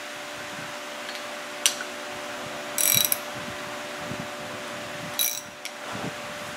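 A hand ratchet wrench clicks as it is swung on a truck air dryer: one sharp click, then two short bursts of rapid ratcheting, about two and a half seconds apart. A steady low hum runs underneath.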